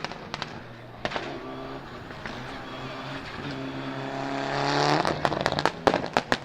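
Mitsubishi Lancer Evo VI rally car's turbocharged four-cylinder engine, heard from inside the car: after a few pops, it pulls up through the revs with a rising pitch. About five seconds in, the engine note drops away and the anti-lag system fires a rapid string of sharp bangs and crackles.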